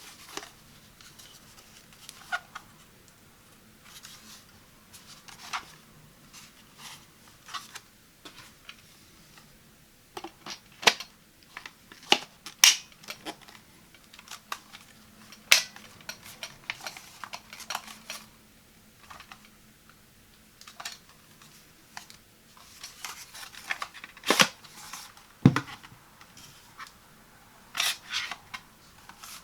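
Hands handling a new handheld vacuum and its packaging: irregular clicks, taps and short rustles of plastic and cardboard, with a dull thump near the end.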